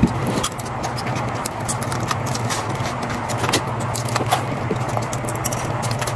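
Hands cracking and pulling apart cooked crab shells over a metal pan, a string of short scattered clicks and crunches over a steady low hum.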